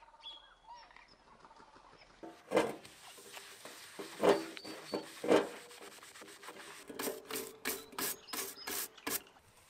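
Scrubbing a soapy stainless steel kettle by hand: a few slow rasping strokes with an abrasive sponge, then a quick run of scratchy strokes with a stiff plastic brush, about three or four a second, near the end.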